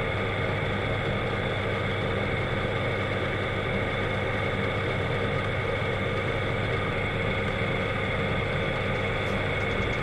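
Bench drill press running steadily with a constant hum, while a resin-cast corn cob lure body is held to the spinning bit to drill the eye sockets.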